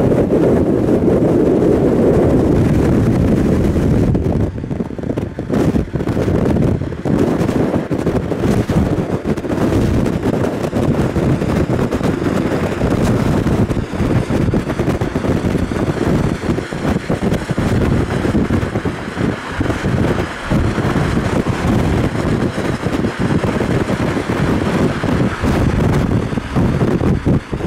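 Wind buffeting the microphone over the road noise of a moving car: a dense, constantly fluttering rumble with no distinct events.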